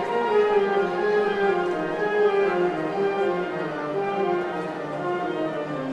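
Orchestral background music with slowly moving sustained notes.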